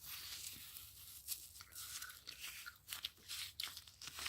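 Irregular gritty crunching as a stress ball filled with sand or sugar is squeezed and handled.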